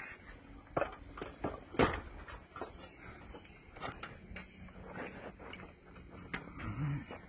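Irregular clicks, taps and knocks of hands handling the cable and camera fittings, the loudest about two seconds in, with a short low hum-like sound near the end.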